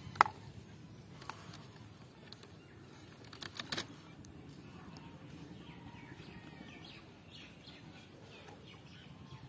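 Hands working plastic twine on a plastic basket: a sharp plastic click just after the start and a quick run of clicks about three and a half seconds in. Faint bird chirps sound in the background from about halfway through.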